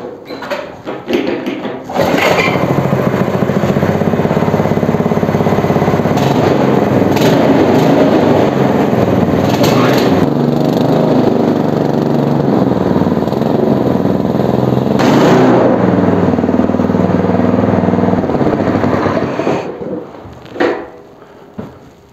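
Homemade mini tractor's engine starting about two seconds in, then running steadily with small changes in pitch, and dying away near the end.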